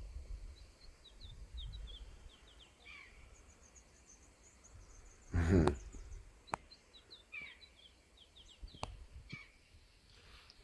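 Small birds chirping in quick runs of short high chirps over a low wind rumble on the microphone. About five seconds in comes a brief loud thump and rustle, followed by a few sharp clicks.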